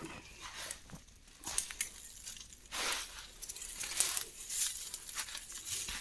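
Footsteps crunching and rustling through dry leaf litter and twigs, in uneven steps.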